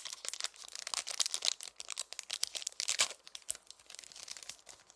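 Foil wrapper of a Pokémon trading card booster pack crinkling and tearing as it is opened by hand, with dense irregular crackles and a sharper click about three seconds in.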